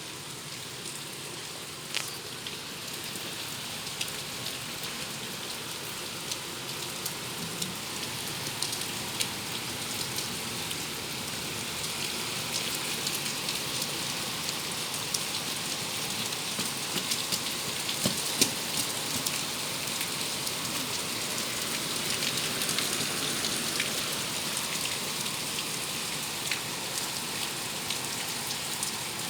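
Steady rain falling, with many individual drops ticking sharply on a nearby surface; the shower grows gradually heavier.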